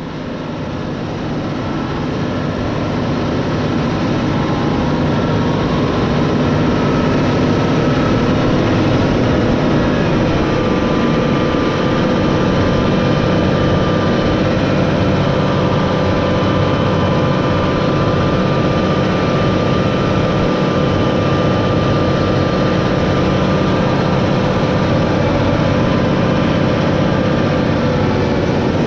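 John Deere 8RX four-track tractor running steadily under way, its engine and track drive making a level drone that fades in over the first few seconds.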